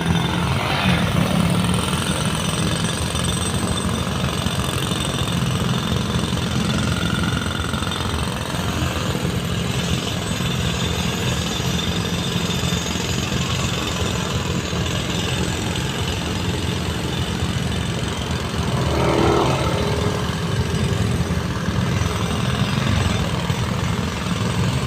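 Road-repair machinery running steadily with a fast mechanical pulsing, mixed with engine noise.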